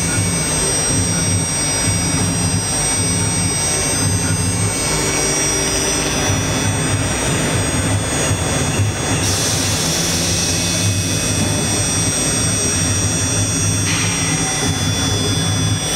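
A CNC wood router's spindle runs with a steady high whine while its bit carves into a wooden panel. A lower machine hum steps in and out as the head moves. A brighter cutting hiss comes up about nine seconds in.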